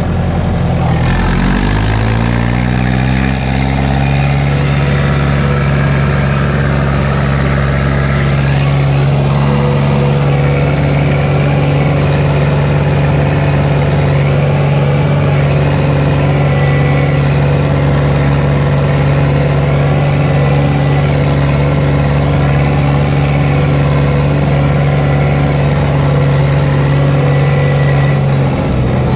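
Fiat 70-66 tractor's diesel engine picking up revs over the first couple of seconds, then running steadily at high revs, with its pitch falling away right at the end.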